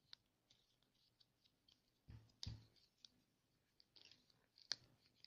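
Quiet scattered clicks and soft knocks of a plastic play-dough cookie mould being handled as modelling clay is pressed into it, with two louder knocks about two and a half seconds in and a sharp click near the end.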